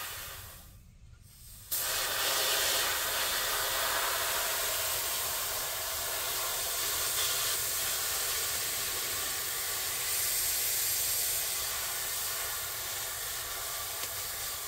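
Compressed air hissing from an air-compressor blow-gun nozzle pushed into the end of a rubber golf grip, inflating the grip so it slides onto the putter shaft. The hiss dies away just after the start, then comes back suddenly a little under two seconds in and stays steady.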